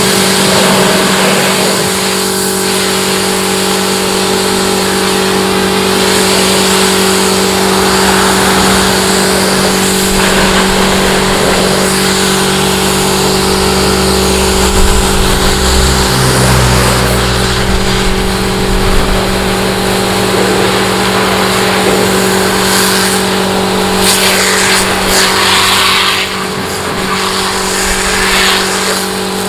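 Pressure washer running steadily: the pump motor hums under the hiss of the high-pressure water jet spattering onto a mud-caked car body.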